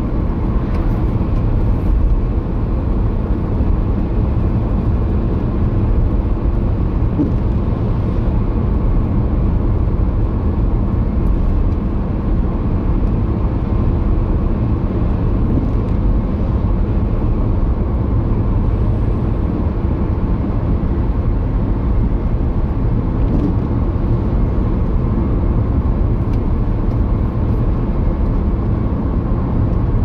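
Car driving at speed, heard from inside the cabin: a steady rumble of road and engine noise.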